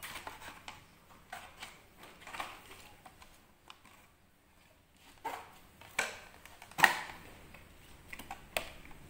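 Hard plastic parts of a homemade mosquito trap being handled and pulled apart: a funnel, a small computer fan and a plastic jar. Irregular clicks, knocks and scrapes, with a brief lull around four to five seconds in and the loudest sharp knock about seven seconds in.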